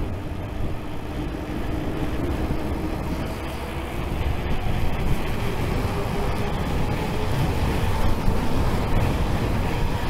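Wind rushing over the microphone and wide mountain-bike tyres humming on pavement as the e-bike descends a hill at speed, a little louder from about halfway through as it picks up speed.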